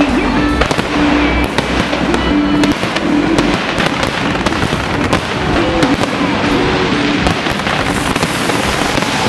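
Fireworks bursting and crackling densely, with many sharp reports, over music playing underneath.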